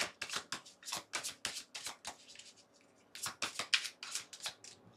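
A deck of oracle cards being shuffled by hand, the cards slapping in quick strokes about four or five a second, with a short break a little after two seconds in.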